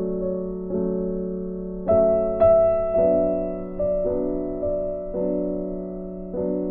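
Background piano music: slow, soft chords struck about once a second, each ringing on and fading before the next.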